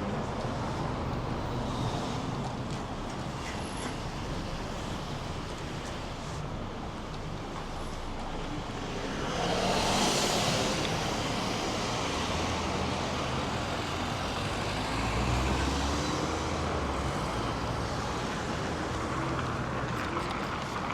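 City street traffic: a steady wash of car and tyre noise, with one vehicle passing loudly about ten seconds in and a low engine rumble shortly after.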